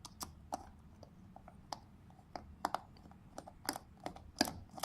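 Irregular light clicks and taps of small hard objects being handled, about a dozen over a few seconds, with the loudest about four and a half seconds in.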